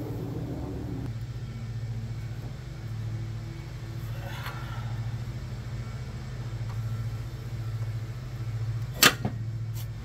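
Handheld gas torch burning steadily against a rusted exhaust manifold nut, a steady low hum, to free the seized fastener. A sharp metal knock about nine seconds in.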